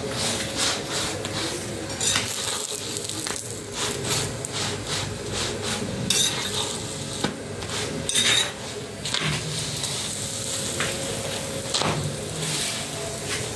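Chapati frying on a flat pan, sizzling steadily in the oil, with repeated short clicks and scrapes of a metal spoon and knife against the pan as the flatbread is turned and oiled.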